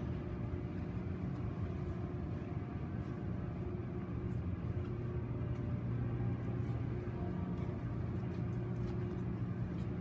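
Steady low hum and rumble of background room noise, unbroken, with a few faint ticks.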